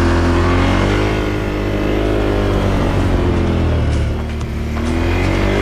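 Off-road vehicle engine pulling away and accelerating, its revs climbing and levelling off, easing briefly about four seconds in before rising again.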